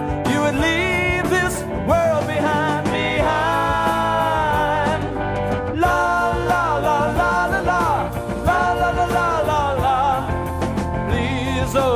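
Gospel band music: drums and bass under a lead melody that slides up and down into long held, wavering notes.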